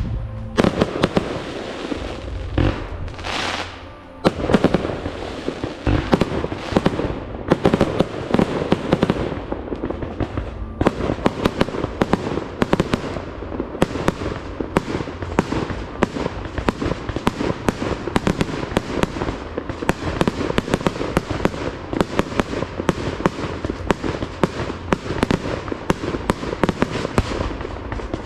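Fireworks display: shells launching and bursting, with sharp bangs and crackling reports. They are sparser in the first few seconds and turn into a dense, rapid run of reports from about ten seconds in.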